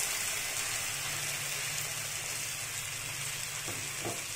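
Melted butter sizzling in a nonstick frying pan around a mound of freshly added blended tomato paste: a steady hiss, with a couple of faint knocks near the end.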